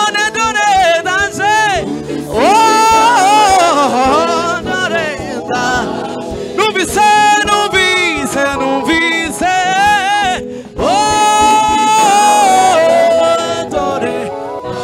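Gospel praise-and-worship singing in Kinyarwanda, voices wavering with vibrato through several long held notes, with a short break about two-thirds through.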